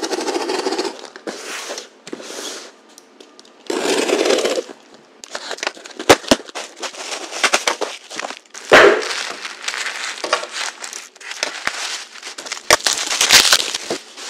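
A box cutter cutting through the packing tape on a cardboard parcel in four noisy strokes over the first few seconds. Then cardboard flaps open and packaging rustles and crinkles as items are lifted out, with several sharp clicks and knocks.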